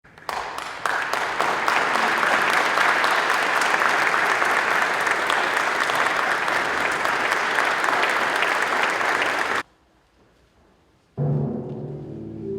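Audience applauding, which stops abruptly about nine and a half seconds in. After a second or so of near silence, an ensemble starts playing, with timpani and low held notes.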